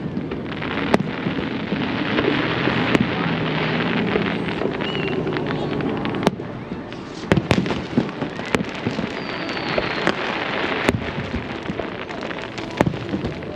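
Aerial fireworks: sharp shell bursts, about ten of them, irregularly spaced, over dense, continuous crackling.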